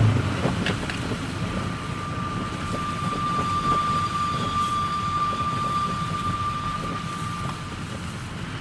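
A car's steady high-pitched whistle starts about a second in and fades near the end, over the low rumble of the moving car. The driver can't place its source but rules out the steering rack.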